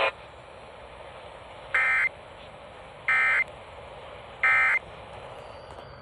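Three short bursts of NOAA Weather Radio end-of-message data tones, the warbling two-tone SAME signal that closes an emergency alert, played through a Midland weather radio's small speaker over a steady low hiss.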